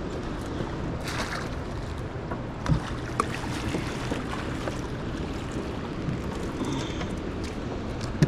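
Steady wash of river water and wind around a boat, with a low hum under it and a couple of short knocks about three seconds in.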